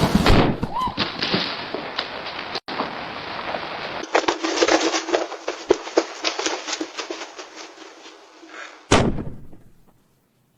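Rapid crackling pops, like a string of firecrackers, from the exploding prank package box, ending in one sharp bang near the end.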